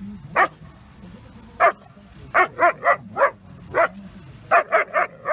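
German Shepherd puppy barking: about eleven short, high-pitched barks, some single and some in quick runs of three or four.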